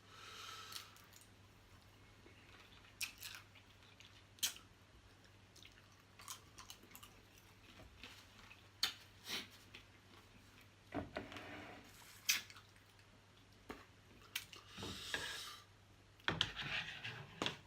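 Close-up eating sounds of small blue crab pieces in spicy sauce being chewed and sucked: short wet crunches and smacks at irregular intervals, with a few longer sucking noises.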